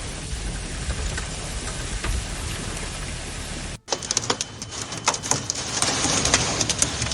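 Storm noise: wind and rain with a low rumble. After a cut about four seconds in, heavy rain striking a hard surface, with many sharp ticks from the drops.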